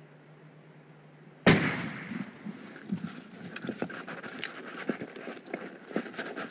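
A single rifle shot about a second and a half in, fired downward at snow-covered ice, sharp and loud and dying away quickly. It is followed by a quick run of crunching and knocking on snow and ice as the person moves about and jabs a pole at the surface.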